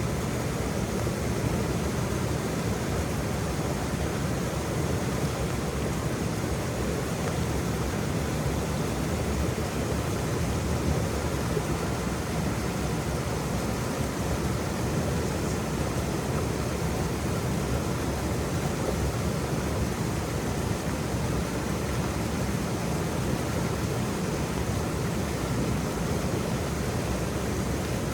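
Waterfall rushing steadily, a dense, even roar of falling water heaviest in the low end.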